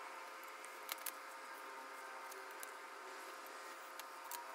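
Paper pieces and an aluminium ruler being handled on a cutting mat: light clicks and taps twice about a second in and once near the end, over a faint steady hum.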